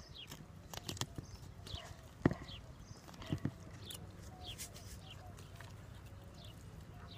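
Birds chirping in short, high, falling notes, with a few sharp knocks and taps from a plastic bottle being handled. The loudest knock comes about two seconds in, and two more follow a second later.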